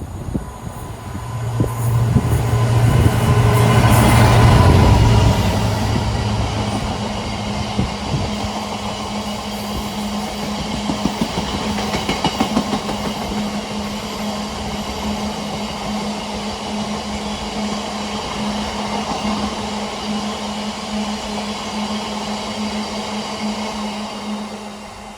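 Diesel-hauled train passing close by. The locomotive's engine swells to its loudest about four seconds in, then the train's cars roll past with steady wheel clatter for the rest.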